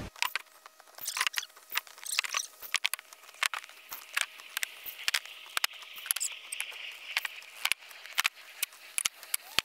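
Split firewood being loaded into a plastic sled: irregular sharp knocks of log against log and against the sled's plastic hull, several every second.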